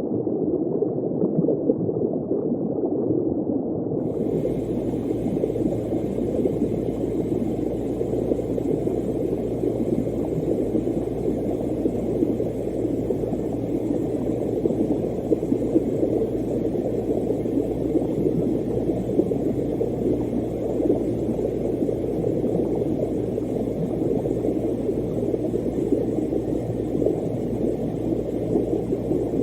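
Muffled underwater ambience: a steady low bubbling rush, with a faint hiss and a low hum joining in about four seconds in.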